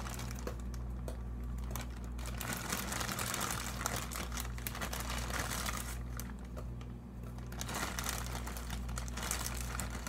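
Plastic bag of marshmallows crinkling as it is handled and the marshmallows are tipped out, in irregular spells with two brief pauses, over a steady low hum.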